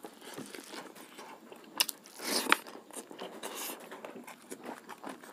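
A person chewing and crunching a mouthful of sukha roti, rice and pork close to a clip-on microphone, with many small mouth clicks and a louder crunchy burst about two seconds in.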